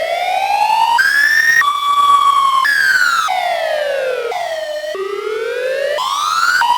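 Electronic siren tone of an EAS-style alarm, its pitch sweeping up and down in rising and falling glides a second or two long, each breaking off abruptly into the next.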